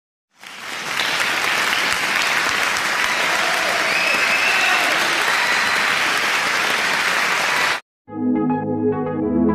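Crowd applause that swells up within the first second and cuts off abruptly about eight seconds in. Soft ambient music with sustained tones starts right after.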